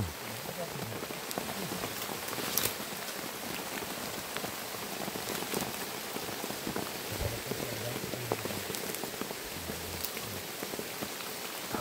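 Steady rain falling, with single drops now and then standing out.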